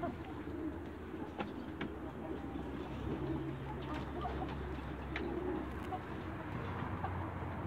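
A flock of young Light Brahma chickens making low, continuous contented calls while feeding, with a few scattered clicks.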